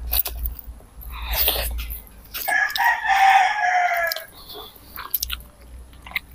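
A rooster crows once, one long drawn-out call that dips slightly at its end, from about two and a half to four seconds in. Before it comes a short noisy rush, and small clicks of eating are scattered throughout.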